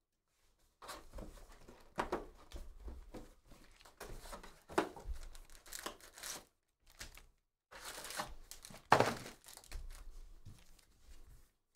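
Panini Prizm football hobby box being torn open and its foil-wrapped packs pulled out and stacked: cardboard tearing and pack wrappers crinkling in short, irregular bursts. The loudest, sharpest burst comes about nine seconds in.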